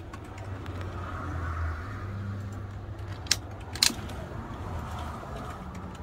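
Cabin noise inside a moving Hyundai County-based motorhome: a steady low engine and road drone. Two sharp clicks, about half a second apart, come a little past three seconds in.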